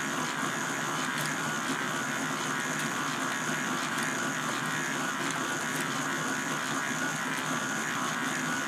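K'nex electric motor running steadily, driving the plastic gears, chain and tape of a K'nex tape-read mechanism. It makes a constant mechanical whir with faint clicks from the plastic parts.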